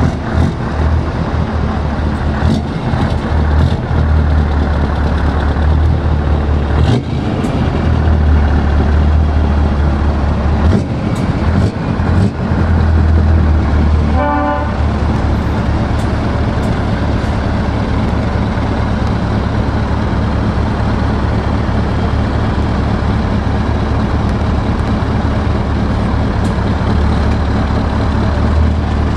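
Heavy-truck diesel engines running at low speed as a Scania R-series tractor unit pulls away and rolls past, the engine sound swelling for a few seconds. A short horn toot about halfway through.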